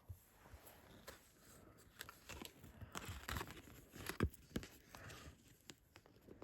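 Scratching and rubbing at the scratch-off panel of a card, with scattered small clicks and taps, as the coating refuses to come off.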